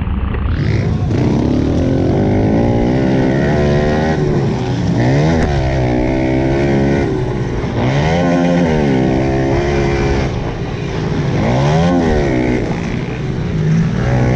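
Pit bike engines revving on a race track, their pitch repeatedly dropping off and climbing again as the riders back off and accelerate, with sharp swings about five, eight and twelve seconds in.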